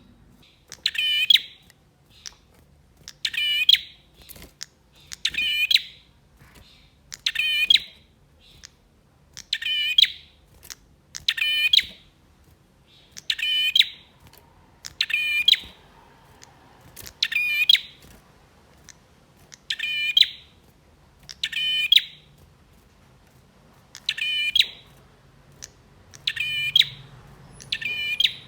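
Male prinia singing: a short, loud, rapidly trilled phrase repeated about every two seconds in an even rhythm.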